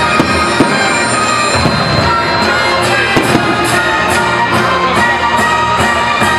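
Loud orchestral music with sustained tones, joined from about two seconds in by a regular run of sharp high ticks, about three a second.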